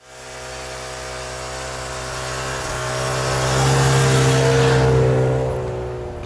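Engine of a snow vehicle running at a steady pace, growing louder toward the middle and fading away near the end.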